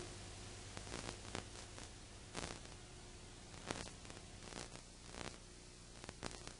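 Faint hiss and low steady hum of old videotape playback, with scattered small clicks and crackles.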